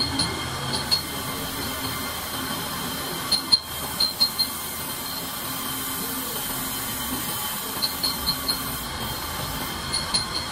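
Abrasive belt grinder running with a steady high whine while a steel bar is held against the belt, grinding and throwing sparks. Short sharp clicks come in quick clusters a few times, about three and a half seconds in, about eight seconds in and near the end.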